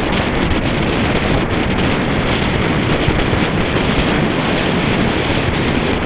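Steady wind noise buffeting the microphone of a camera mounted on a road bike's handlebars while riding at speed.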